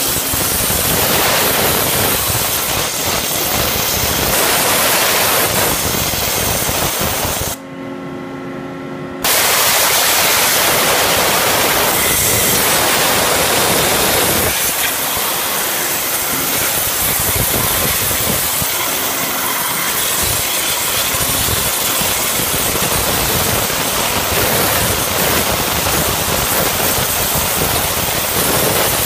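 Waterjet cutter's high-pressure jet cutting through metal plate, a loud steady hiss. About eight seconds in the jet shuts off for about a second and a half, leaving a quieter machine hum with a few steady tones, then cuts in again.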